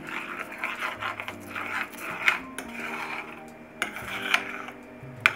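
A metal fork scraping and stirring eggs against the bottom of a skillet as they scramble. It is a run of rasping strokes broken by a few sharp taps of the fork on the pan.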